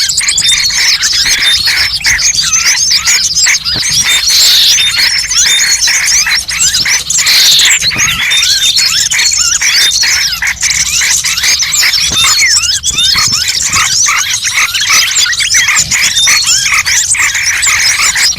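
Dense chorus of many small birds chirping and twittering rapidly in high, quick notes, overlapping without a break: a bird-lure (pikat) call recording.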